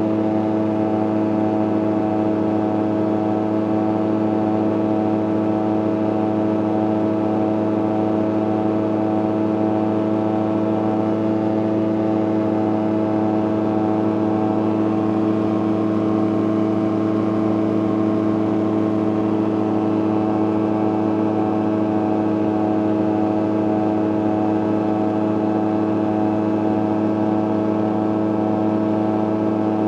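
CGS Hawk ultralight's engine and propeller running steadily at cruise power, a constant drone that holds one pitch, heard from inside the cockpit.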